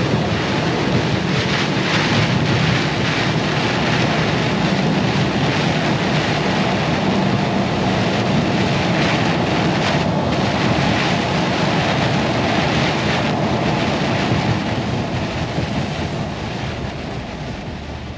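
Lorry driving on a wet motorway, heard from the cab: a steady rumble of engine and tyres with a hiss of spray off the wet road. It fades away over the last few seconds.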